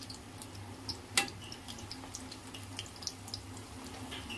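Cornflour-and-flour-coated sweet corn kernels deep-frying in hot oil in a kadhai: a steady sizzle with scattered crackles, and one sharp crack about a second in.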